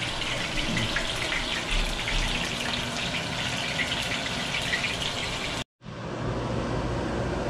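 Jack crevalle fillet sizzling and crackling in hot oil in a frying pan. A little over five seconds in, the sizzle cuts off abruptly, and a steady low hum follows.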